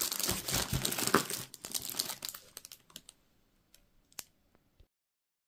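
Plastic packaging bags crinkling and rustling as they are handled and opened. The rustling fades over about three seconds into a few light clicks, then cuts off to silence near the end.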